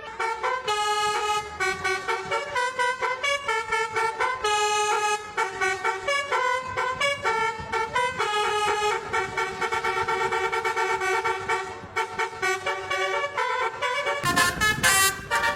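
A truck's musical horn playing a tune of short pitched notes, one after another. About a second before the end a louder, harsher horn sound with a deep rumble cuts in.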